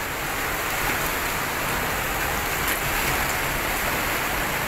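Floodwater rushing past in a fast torrent: a steady, even wash of water noise.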